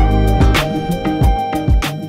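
Background music with a steady beat: a deep bass line, held tones and sharp drum hits.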